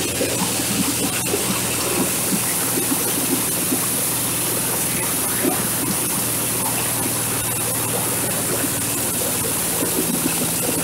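Kubota single-cylinder diesel engine running steadily, driving a corn husker-sheller, with a steady rushing noise from the machine over the engine's even hum.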